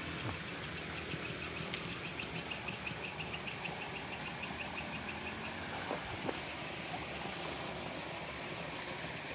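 Night insects calling: a steady, high-pitched, rapidly pulsing trill, with a second, lower call pulsing about four times a second that stops about halfway through.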